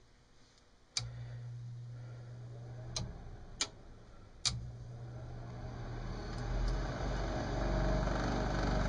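Lennox furnace's inducer fan starting up: a click and a low hum about a second in, a few more clicks, then from about halfway the fan motor spins up into a loud, rough running noise that keeps building. The noise is from its bearings, which the technician takes to be shot.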